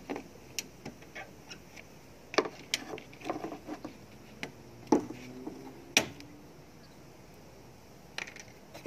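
Plastic push clips on a Toyota Prius headlight trim panel being pried out with a clip-removal tool: a scattered run of plastic clicks and small knocks at irregular intervals.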